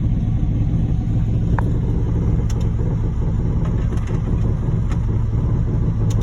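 Truck engine running steadily: a low, even drone with a few faint clicks over it.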